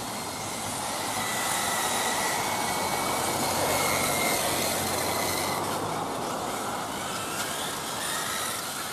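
Electric 1/10 scale RC touring cars racing, their motors and drivetrains whining over a steady hiss of tyres on asphalt. It swells as a car passes close, loudest about four seconds in.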